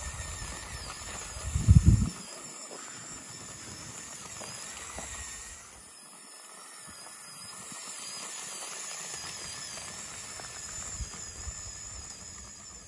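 Lego Technic RC pickup truck driving in its high gear over gravel: a thin, wavering high whine from its electric drive and gearbox over hissing, crunching ground noise. A brief loud low rumble comes about two seconds in.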